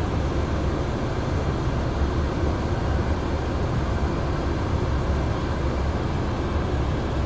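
Steady low rumble of a vehicle in motion, heard from on board: engine and road noise with traffic around, no breaks or distinct events.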